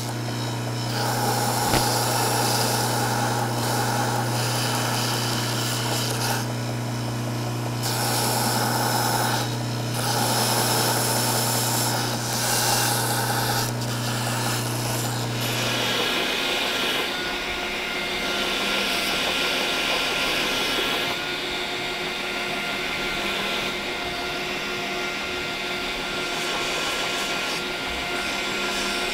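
Belt grinder with a small-wheel attachment running while a folding-knife handle assembly of titanium liners and canvas Micarta scale is pressed against the belt to grind the edges flush; the grinding swells and eases as the piece is worked over the wheel. About 16 seconds in, the steady low hum drops away and a hissier, higher grinding sound takes over.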